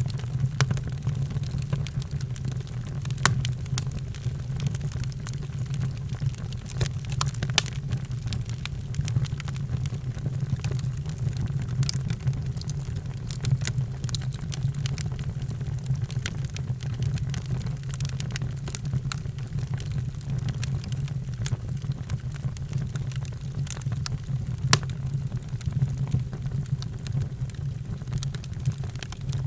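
Fire in a fireplace crackling, with frequent sharp irregular pops over a steady low rumble.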